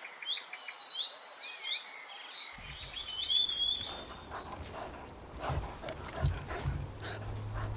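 Wild songbirds singing, several quick whistled phrases in the first four seconds. A low rumble comes in partway through, with scattered rustles and knocks.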